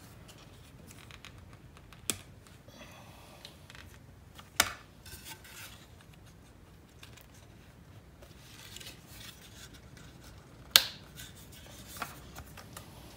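Plastic retaining clips being pressed and snapped onto the back of a forged carbon fiber A-pillar trim piece: a few sharp clicks, the loudest near the end, with fainter rubbing and scraping of the part being handled between them.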